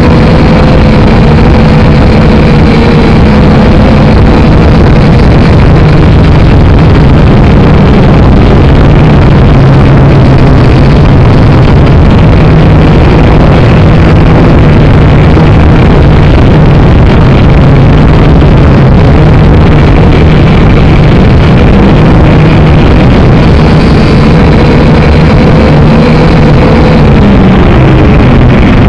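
Syma X5C quadcopter's four small coreless motors and propellers whirring loudly, heard through the drone's own onboard camera microphone. A steady hum sits over a dense rushing noise, its pitch wavering a little with the throttle and dropping near the end.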